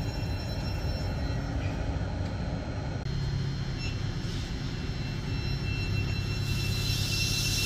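Class 717 electric multiple unit at the platform: a steady rumble with several steady high electrical whines, growing a little louder with more hiss near the end.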